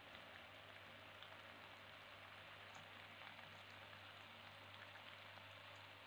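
Faint, steady splashing and trickling of water falling from a small tabletop fountain's spout onto pebbles in its basin, with a low steady hum underneath.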